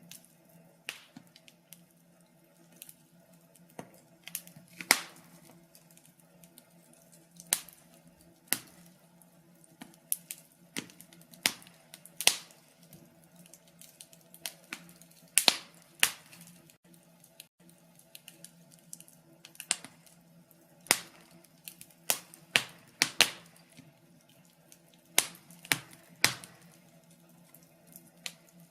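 Wood fire in a fireplace crackling, with irregular sharp snaps and pops, some close together and some a second or two apart, over a faint steady low hum.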